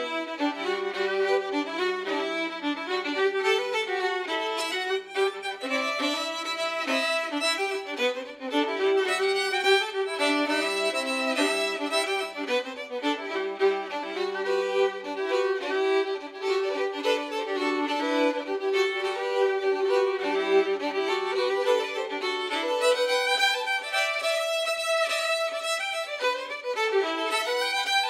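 Folk fiddle music: a fiddle playing a continuous tune.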